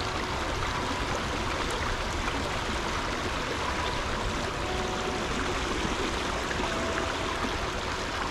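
A stream running high and fast: a steady rush of flowing water, described as a gusher.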